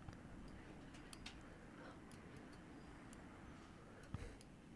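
Near silence: faint room tone with a few scattered soft clicks, and one slightly louder soft knock about four seconds in.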